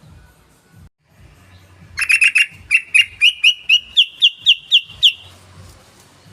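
Yellow-vented bulbul (trucukan) song: a quick cluster of notes, then an even run of about a dozen clear upswept notes, roughly four a second, lasting about three seconds.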